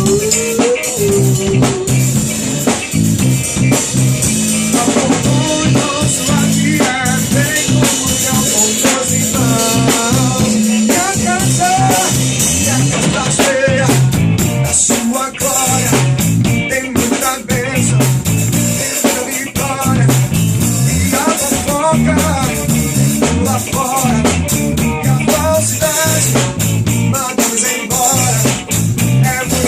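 Live band playing an instrumental passage of an upbeat gospel worship song, with drum kit and guitar over a steady beat.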